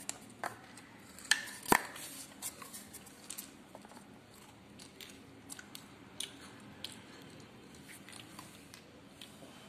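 Handling sounds from dolls and snack pieces on a hard stone floor: a few sharp taps and clicks in the first two seconds, the loudest a little under two seconds in, then faint scattered clicks.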